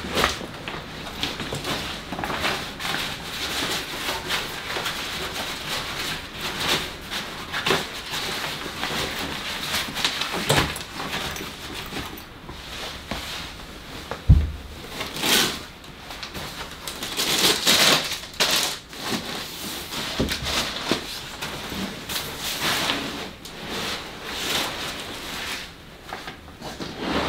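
Nylon backpack and pouches rustling as they are handled and packed, with scattered clicks and knocks and one heavy thump about halfway through.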